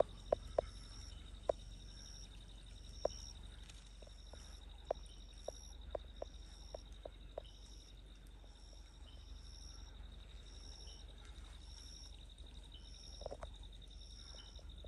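Insects calling: a steady high trill, with a higher chirp from another insect repeating about once a second, over a low hum. Faint scattered clicks are heard now and then.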